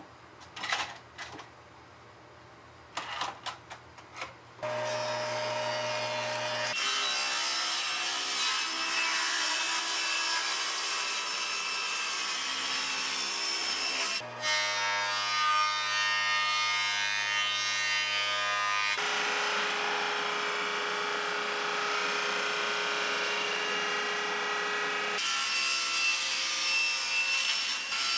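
A few scattered knocks and clatters from handling and clamping a glued-up board. After about five seconds, a table saw running and cutting through hardwood, heard as a loud steady whine and rush of cutting that changes character across several short cuts.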